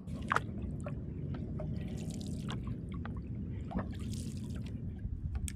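Kayak paddle strokes: water dripping and trickling off the paddle blades with light, scattered splashes over a steady low rumble.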